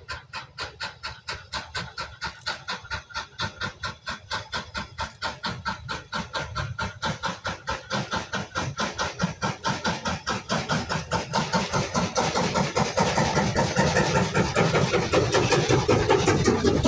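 BR Standard Class 5 two-cylinder 4-6-0 steam locomotive working hard, its exhaust beating at an even rhythm of around four to five chuffs a second. The chuffs and the rumble of the train grow steadily louder as it approaches.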